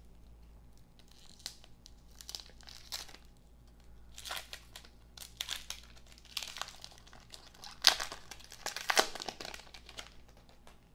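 Wrapper of a 1992-93 Topps basketball card pack being crinkled and torn open by hand, in irregular crackles that are loudest about eight and nine seconds in.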